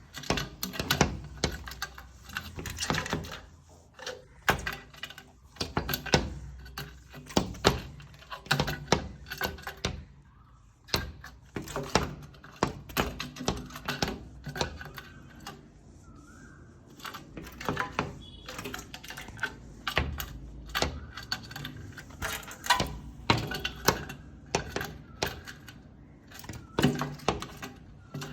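A bird knocking with its beak on a hard surface: many quick, irregular taps, often in rapid runs with short pauses between.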